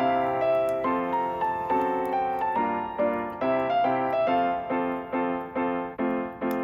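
Background music: a piano or electric-piano tune with chords struck on a steady beat and a simple melody.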